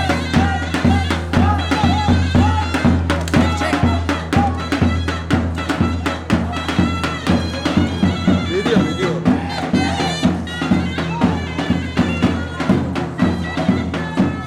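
Folk dance music: a loud reedy wind instrument plays a quick, ornamented melody over a steady low drone, with regular drum beats.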